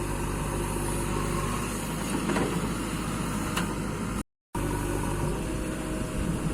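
An engine of heavy construction machinery running steadily. The sound drops out completely for a moment about four seconds in.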